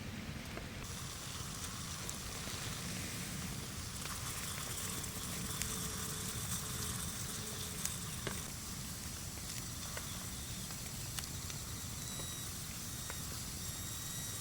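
Rain falling steadily with a campfire burning under it: an even hiss with scattered sharp snaps and crackles.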